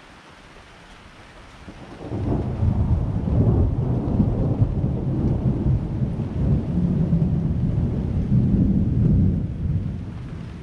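Steady rain hiss, then about two seconds in a long, loud rumble of thunder rolls in, lasting some seven seconds and fading near the end.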